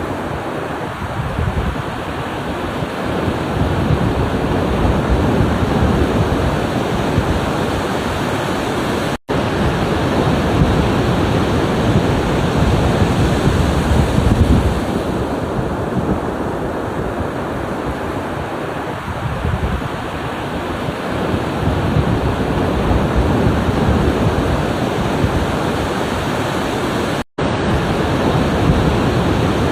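Ocean waves breaking and washing in a steady surge, swelling and easing every several seconds. The sound cuts out for an instant twice.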